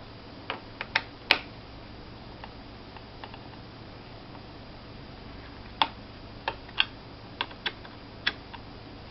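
Scattered small clicks and taps from a small Phillips screwdriver loosening the screws of a laptop's plastic hard drive panel and handling the panel. A few come about a second in and a cluster follows from about six seconds.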